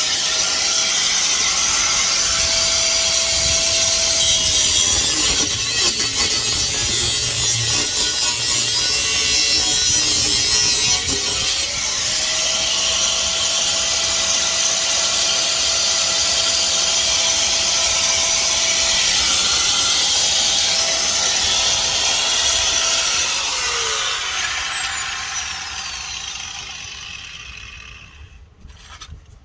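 Grinder with an abrasive wheel cutting through a car's exhaust pipe: loud, harsh grinding over the motor's steady whine. The whine drops away about five seconds in, spins back up about twelve seconds in, and the grinder winds down and stops near the end.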